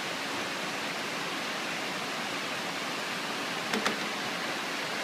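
Steady, even background hiss, with two short clicks close together a little under four seconds in.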